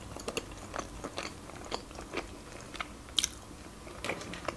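Close-miked chewing of a mouthful of large pasta in cream sauce: soft, irregular wet mouth clicks and smacks, with one sharper click about three seconds in.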